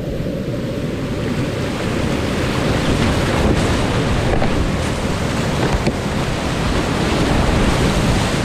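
Whitewater rapids rushing and splashing around a kayak's bow, heard close to the water. The sound grows louder about three seconds in as the boat enters the churning rapid, with a few sharp splashes.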